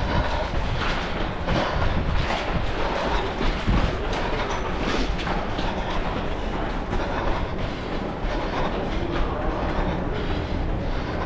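Running footsteps on a hard floor and movement noise picked up by a head-mounted camera, as irregular knocks over a steady background din.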